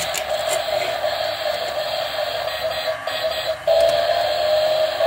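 Tinny electronic tune playing from a battery-powered toy car race track, louder and clearer from about three and a half seconds in.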